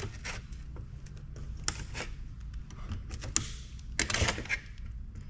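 Scattered clicks, taps and light knocks from hands and tools working a wire loose inside a microfiche reader, with a quicker cluster of taps about four seconds in.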